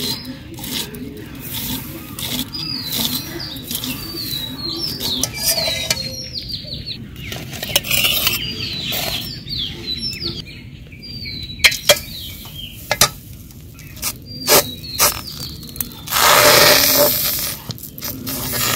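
Small birds chirping, repeating short falling notes through the first half. A few sharp clicks follow. Then, about 16 s in, a loud hiss of jal ruti batter sizzling in a hot iron wok for a couple of seconds.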